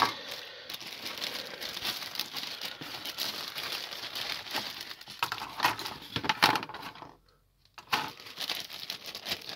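Clear plastic bag crinkling as plastic model-kit sprues are drawn out of it, with clicks and light clatter of the sprues. It goes quiet for a moment about seven seconds in, then more clicking as the sprues are set down on the table.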